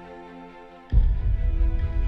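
Background music: soft sustained chords, joined about a second in by a sudden, much louder deep beat that carries on.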